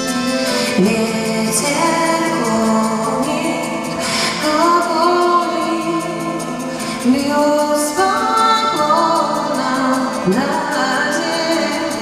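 A woman singing a song live into a microphone, holding long gliding notes, with accordion and band accompaniment.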